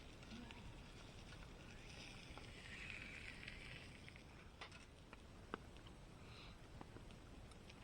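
Near silence, with a soft hiss for a couple of seconds and a few faint clicks, one sharper than the rest about five and a half seconds in.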